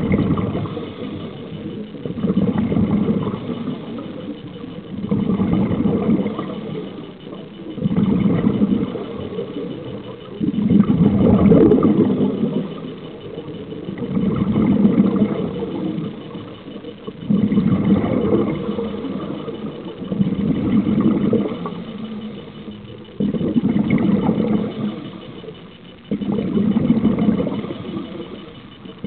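Scuba regulator exhaust bubbles from a diver breathing out, recorded underwater: a low bubbling rumble that swells and fades about every three seconds with each breath.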